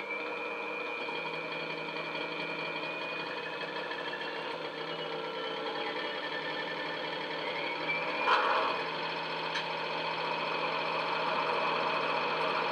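Sound decoder (ESU LokSound 5 with Coastal DCC's Class 70 sound) playing a Class 70 diesel locomotive's engine at standstill through the model's small EM1 speaker: a steady diesel idle with a whine rising at the start, as if just after start-up. A short burst of noise about eight seconds in.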